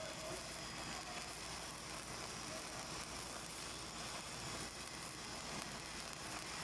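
Shielded metal arc (stick) welding arc burning on a 7018 low-hydrogen electrode, giving a steady, even sizzle with no breaks.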